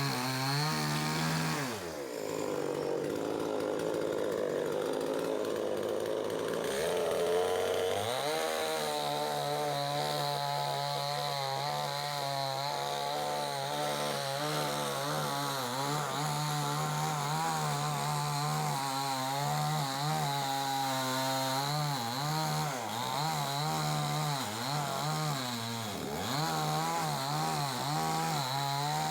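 Two-stroke chainsaw cutting through a dead tree at high revs, its pitch wavering under load. The revs drop away about two seconds in and climb back about six seconds later, with another brief dip near the end.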